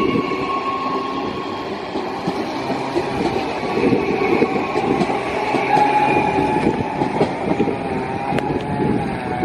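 Adelaide Metro 4000-class electric train running along the track: a steady rumble with a faint whine whose pitch shifts slowly.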